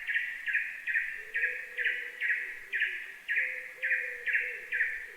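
A bird calling in a steady series of short, identical notes, about two a second. A faint low wavering tone joins underneath about a second in.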